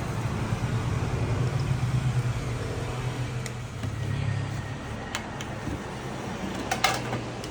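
A running vehicle engine, a steady low drone, with a short sharp click near the end.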